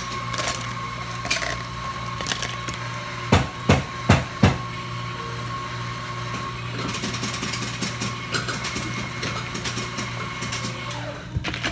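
Ice cubes dropped into a plastic cup with four sharp knocks, then sparkling water poured over the ice, fizzing and crackling from about halfway on.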